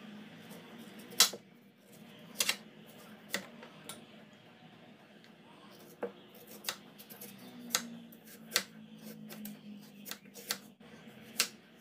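Kitchen knife slicing a carrot into rounds on a wooden chopping board: irregular sharp knocks as the blade cuts through and strikes the board, the loudest about a second in. A steady low hum runs underneath.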